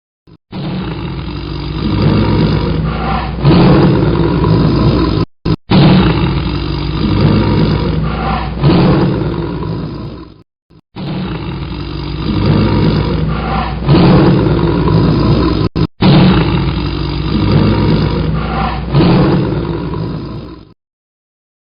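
Tiger roaring and growling in a run of deep, rough roars that swell and fade, with short breaks between; the same sound-effect recording plays twice in a row.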